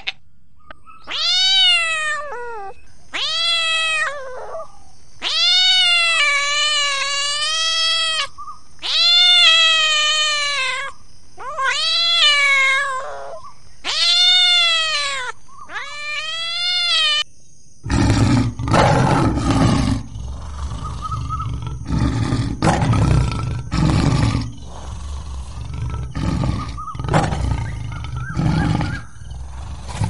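A domestic cat meowing about eight times in long, arching calls. About eighteen seconds in, the cat gives way to a lion roaring in a series of rough, deep bursts.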